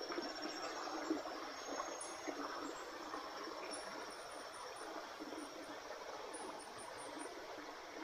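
Water trickling and dripping off a wet gill net as it is handled to pick out fish, with small irregular splashes and ticks. Night insects call steadily in the background.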